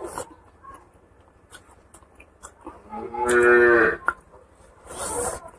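A cow moos once, a drawn-out call of about a second, about three seconds in. A short breathy hiss follows near the end.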